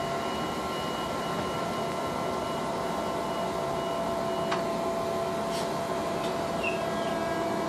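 DART electric train at the platform giving a steady electric hum with several high whining tones, with two sharp clicks about halfway through.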